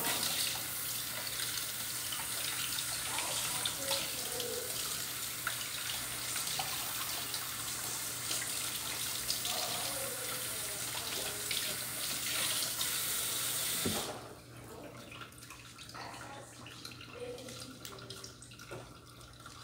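Kitchen tap running into a sink while a raw pork leg is washed under it; the water cuts off about fourteen seconds in, leaving a few faint knocks of handling.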